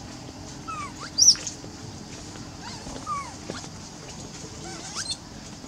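Baby macaques calling: a few short, high-pitched squeals that slide down in pitch, the loudest about a second in and fainter ones around three and five seconds in.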